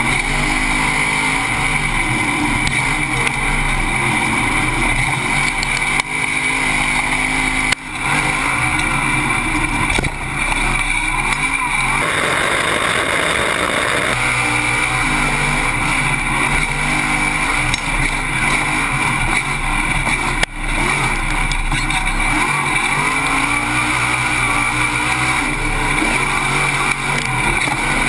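Off-road race truck engine running hard at racing speed, heard from a camera mounted on the truck, its note rising and falling with the throttle over a constant rush of wind and dirt. Two sharp knocks come about eight and twenty seconds in, and a burst of hiss runs for about two seconds near the middle.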